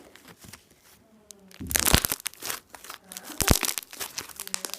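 Homemade foam slime made from shaving foam and jumping clay, squeezed and worked by hand, crackling and popping in bursts. It starts after a quiet second and a half, with the loudest crackles at about two seconds and three and a half seconds in.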